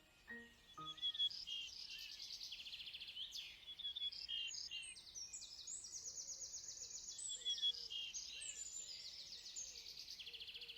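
Several small birds singing and calling at once, many overlapping high chirps and fast trills. The last notes of background music fade out about a second in.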